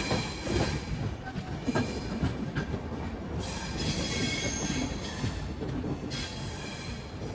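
Passenger train rolling slowly out of a station, heard from an open coach door: a steady rumble and rattle of wheels on track. A high wheel squeal rings out from about three and a half seconds in, and again near the end.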